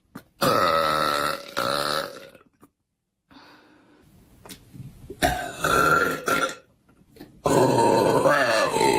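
A woman burping: a long, loud, pitched burp starting about half a second in, a few shorter, softer ones in the middle, and another long, loud one starting near the end.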